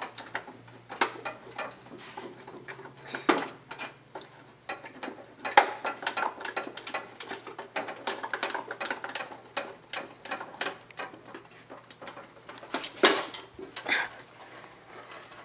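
Irregular clicking, tapping and rattling of hand tools on a mower's metal parts and wiring during a tear-down. The clicks come thickest through the middle, with a sharper knock near the end.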